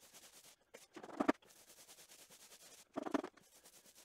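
Paint roller on an extension pole rolling floor paint onto concrete: two short rolling strokes, about a second in and again near three seconds.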